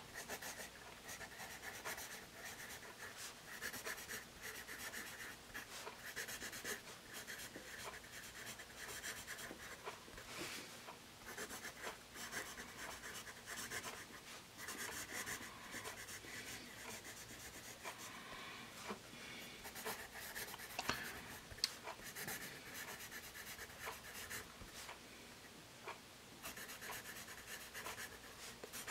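Paper Mate Mirado Black Warrior #2/HB graphite pencil writing cursive on a paper pad: a faint, uneven scratching of pencil strokes. There is one sharp tick about three quarters of the way through.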